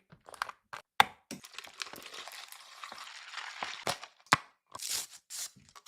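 A vitamin drink bottle being handled and opened: several sharp clicks and cracks, a steady hiss for about two seconds, then a few more sharp clicks near the end.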